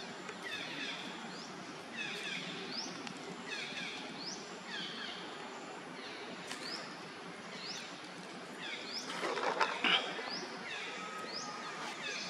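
Outdoor forest ambience: a bird repeats a short, high, swooping note about every 0.7 seconds over a steady background hiss. About nine seconds in, a louder call of about a second stands out briefly.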